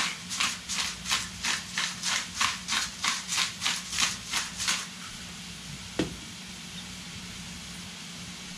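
Hand-twisted pepper mill grinding peppercorns, a rapid gritty crunch at about three to four twists a second, stopping about five seconds in. One sharp knock follows about a second later. Under it the pan of onions and celery frying in bacon fat sizzles steadily, with a low hum.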